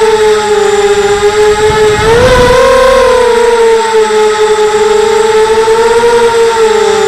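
Mini FPV quadcopter's motors and propellers whining steadily, as picked up by its onboard camera. About two seconds in the pitch rises briefly with a low rush of air, then settles back.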